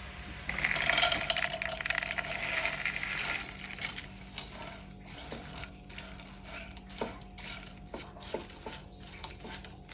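Utensil stirring and clinking in a pan of dry fried ingredients: a dense clatter for about three seconds, then scattered single clinks.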